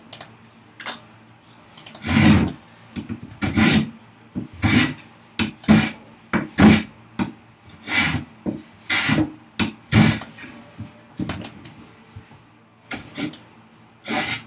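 Metal hand plane taking strokes along the edge of a wooden board: about a dozen rasping passes roughly a second apart. The blade chatters because the workpiece can't be clamped rigidly.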